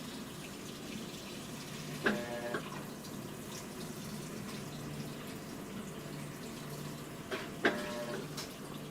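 Water running steadily into a Maytag top-load washer's tub as it fills at the start of a wash cycle, over a low hum. Two short pitched sounds break in, about two seconds in and again near the end.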